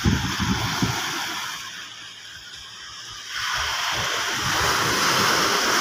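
Sea surf washing against the rocks of a seawall, swelling louder about three seconds in as a wave breaks.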